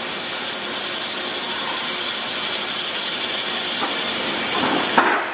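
Spindle of a Peddinghaus HSFDB 2500 B CNC plate drill boring into steel plate: a steady hissing cutting noise that grows louder near the end, with one sharp click about five seconds in.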